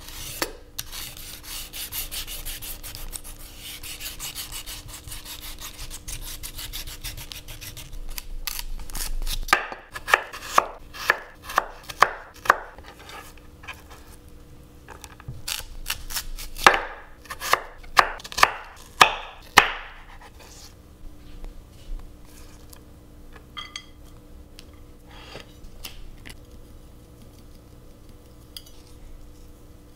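Y-peeler scraping quickly along the skin of a daikon radish for the first nine seconds or so, then a knife chopping on a wooden cutting board in two runs of sharp knocks, about six and then about eight. After that only faint scattered taps.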